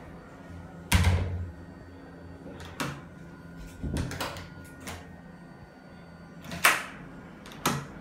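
Wooden restroom door knocking and clacking against its frame about six times as it is pushed shut by its lever handle, the loudest bangs about a second in and a little past two-thirds through. It won't latch because its protruding latch bolt is installed upside down.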